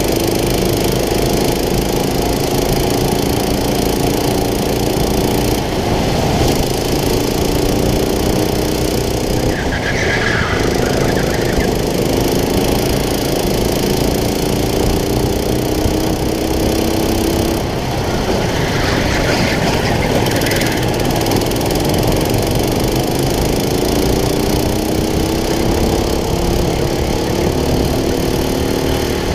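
Go-kart engine running hard under the driver, its pitch climbing steadily as the kart accelerates and dropping back sharply about three times as it slows for corners.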